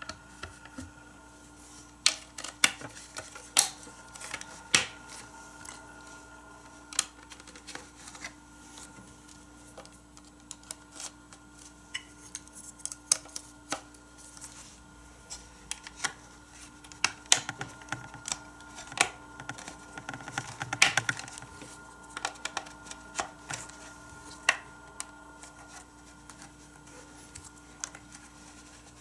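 Hard plastic toy parts clicking and tapping as they are handled and snapped together: grey Micro Machines playset track pieces and connectors being fitted to each other. Irregular sharp clicks, busiest a little past the middle.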